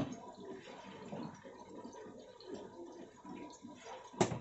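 Sliced onions and whole spices (cumin, caraway, cloves) frying in hot oil in an aluminium pot, an uneven crackling sizzle. A single sharp knock near the end.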